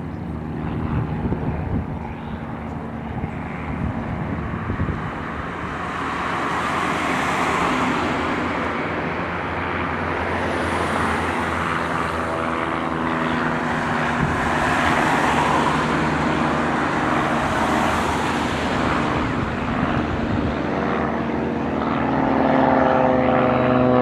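Propeller airplane engines running steadily, with the sound swelling and easing several times as aircraft pass. Near the end an engine note rises in pitch.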